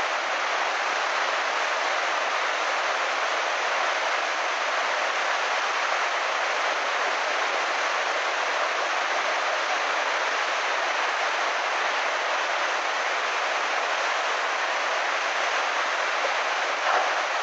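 Flash-flood torrent of muddy water rushing steadily, an even, unbroken noise of churning floodwater.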